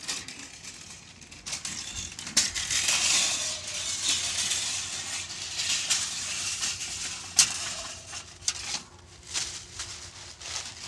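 Chimney brush on a plumbing-snake cable scraping inside a masonry chimney flue as it is worked up and down and drawn back out, the steel cable rasping and clattering against the cleanout opening. There is a sharp click about seven seconds in.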